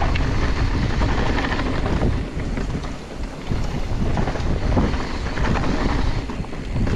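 Wind buffeting an action camera's microphone while riding a mountain e-bike, a steady rush with heavy low rumble and scattered short knocks.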